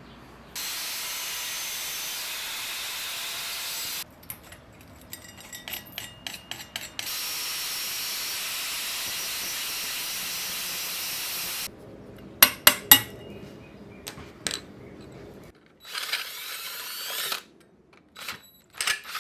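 A power tool run in three long bursts on a steel exhaust bracket and pipe, each one starting and stopping abruptly. Between the runs come scattered clicks, and a few loud sharp metal knocks about halfway through.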